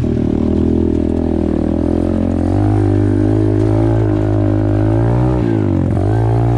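Apollo RFZ 125cc pit bike's single-cylinder four-stroke engine running under throttle while riding a dirt trail. The pitch rises a little about two and a half seconds in, then drops sharply as the throttle is closed near the end and climbs straight back as it is opened again.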